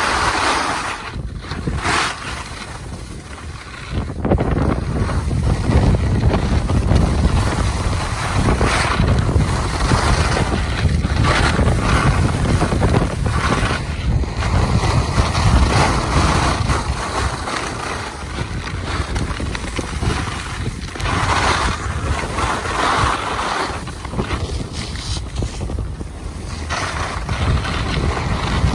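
Wind buffeting the microphone over a steady low rumble, dipping for about two seconds shortly after the start.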